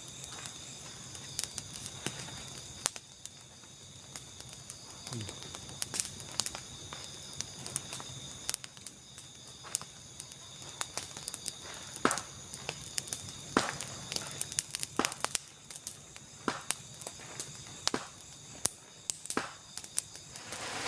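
Night forest ambience: a steady chorus of insects, shrill and high, under scattered sharp clicks and ticks that come thicker in the second half.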